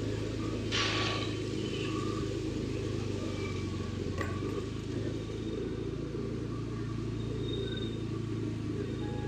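Vehicle engine running at a steady pace, an even low hum, with a short hiss about a second in.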